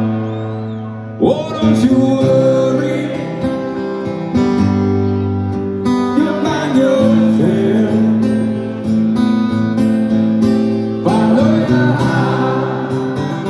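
Live amplified acoustic guitar strumming with a male lead vocal singing over it; the voice comes in about a second in.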